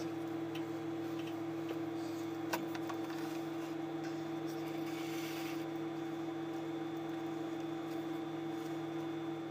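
A steady machine-like hum, with a few light clicks and one sharper knock about two and a half seconds in as the paper-craft robot figures are handled.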